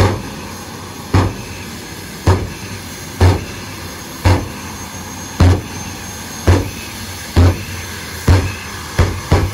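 Jet dragster's turbine running at the starting line, with a series of loud afterburner pops about one a second that come faster near the end, as fuel is dumped into the afterburner in the usual pre-run show.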